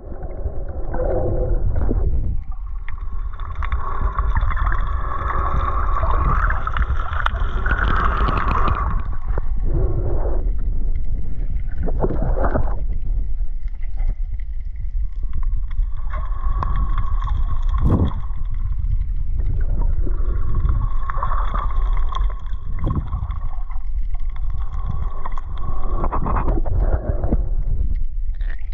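Muffled water noise picked up by a camera held underwater while snorkeling: a steady low rumble of water against the housing, with a few sharp knocks or splashes.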